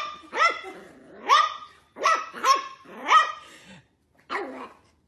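Puppy barking repeatedly, about seven short barks in quick succession, with a longer pause before the last one.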